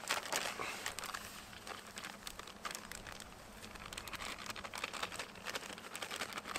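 Faint, irregular crinkling and scraping of hands at work on bannock dough, made up of many small clicks and scratches with no steady rhythm.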